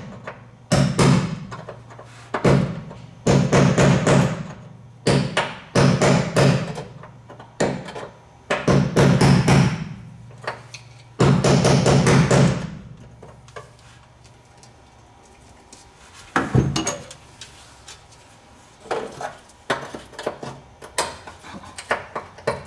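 Hammering on a rusted bolt: quick bursts of sharp metal strikes separated by short pauses, giving way in the second half to sparser, quieter single knocks.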